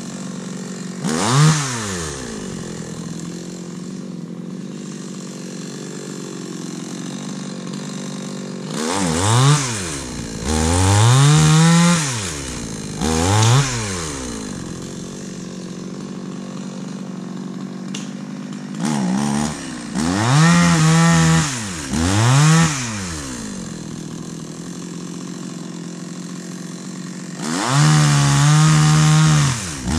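Two-stroke chainsaw idling steadily and revved up again and again while cutting firewood. Some revs are quick blips that rise and fall at once. Others are held at full throttle for a second or two, their pitch sagging slightly under the cut.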